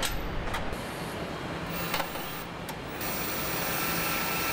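Car assembly-line machinery running steadily, with a few sharp metallic clicks. About three seconds in, it changes to a steadier hiss with a high, even whine.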